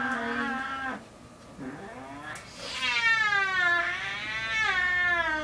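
An elderly cat yowling in long, drawn-out howls that rise and fall in pitch, protesting while its overgrown, curled nails are clipped. One yowl ends about a second in, and after a short pause a longer one starts.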